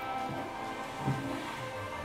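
Background music from a promotional video, with steady held tones and no speech.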